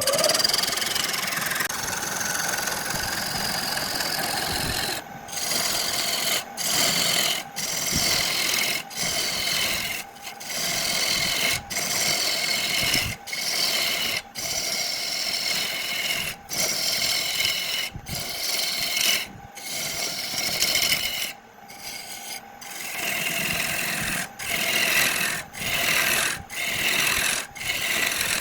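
Wood lathe running with a steady motor tone while a tool is worked against the spinning wood in repeated scraping passes, each about a second long with brief pauses between them.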